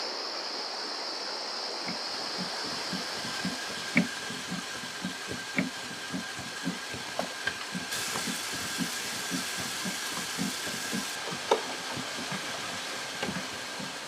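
Hand-cranked wooden winnowing machine running: a steady rush of air from its fan with a low knock about twice a second from the turning crank. About halfway through, a brighter hiss joins for a few seconds as rapeseed pours from the outlet chute.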